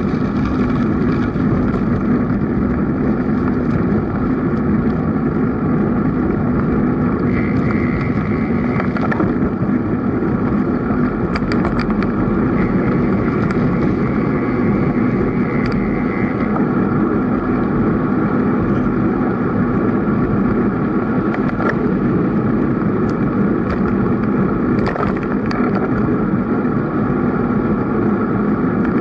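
Steady wind and rolling noise of a bicycle ride, a constant low hum with a few faint clicks.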